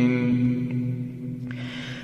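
A man's chanted Quran recitation, holding the drawn-out final note of a verse ending at a steady pitch, which fades away about a second and a half in.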